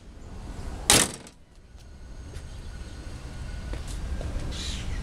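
One loud slam about a second in, a Chevrolet HHR's hood being shut, over a steady low rumble on the microphone.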